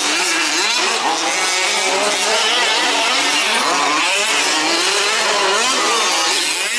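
Several 1/5-scale RC off-road trucks racing, their small petrol two-stroke engines revving up and down over one another.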